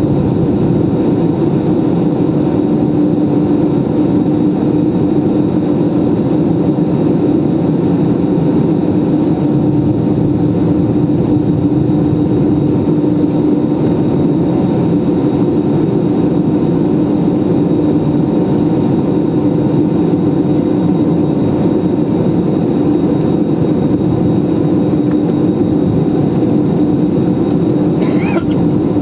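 Jet airliner's turbofan engines heard from inside the cabin during the climb: a loud, steady roar with a constant hum running through it.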